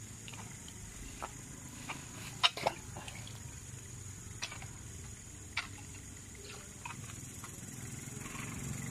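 Scattered sharp knocks and small splashes from a wooden pole probed into a shallow, weedy drainage canal, the loudest two close together about two and a half seconds in. Under them runs a steady high insect drone.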